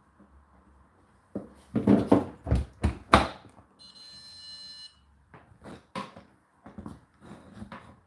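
Whirlpool WFO3P33DLXUK dishwasher door pushed shut with a run of loud clunks and knocks, then the machine gives one electronic beep lasting about a second. A few lighter knocks and taps follow near the end.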